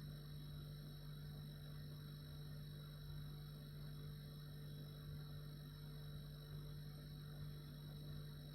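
Refrigerator running: a steady, low hum with faint high-pitched tones above it.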